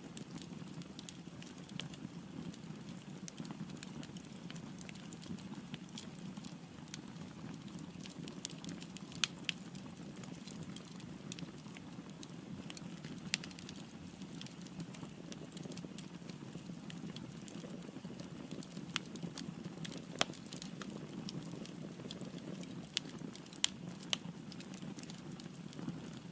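Wood fire burning in a fireplace: a steady low rushing of flames with frequent sharp, irregular crackles and pops from the burning firewood.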